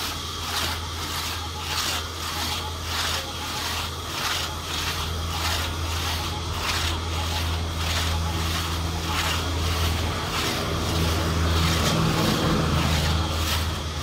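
Two-man crosscut saw pulled back and forth through a log, its teeth rasping in a steady rhythm of about three strokes a second. A steady low engine-like hum runs underneath.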